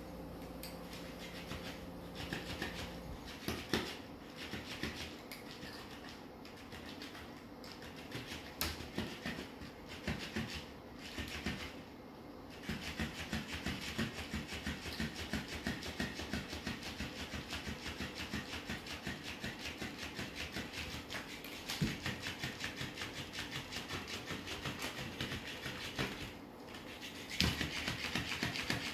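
Battery-powered flopping fish cat toy wagging its tail against a tile floor: soft slaps in scattered runs at first, then a fast steady rhythm from about halfway, louder near the end.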